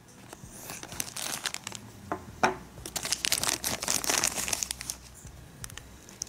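Thin clear plastic packaging bag crinkling as it is cut with scissors and pulled off a small plastic toy part, a dense crackle with sharp clicks, loudest past the middle. A few light clicks of plastic parts near the end.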